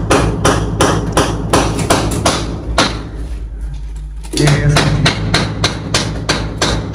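Steady rhythmic hammering, about three blows a second, over a low hum; the blows weaken briefly a few seconds in, then come back.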